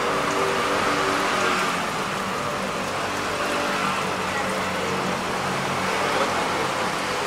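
Steady background noise of a busy street, with a low traffic hum and faint voices.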